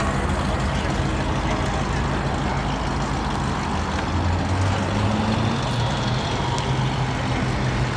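Car engine running steadily at low speed. The note firms up and shifts slightly about four seconds in.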